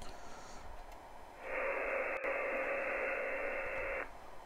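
Amateur radio receiver's band noise, a hiss like white noise limited to the voice band, with a steady heterodyne tone in it, passed straight through an ADAU1701 DSP board. It comes on about a second and a half in and cuts off abruptly near the end.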